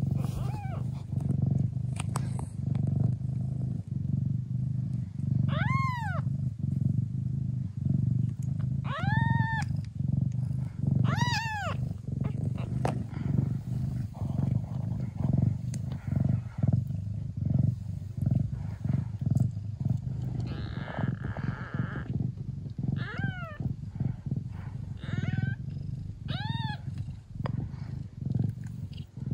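A Thai (traditional Siamese) mother cat purring hard and steadily while nursing her newborn kittens. Over the purr come several short, high-pitched mews from the kittens, each rising then falling in pitch.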